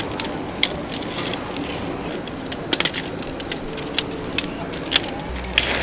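Irregular sharp clicks and light knocks of camping gear being handled while a tarp is pitched, over steady background noise; a low hum comes in near the end.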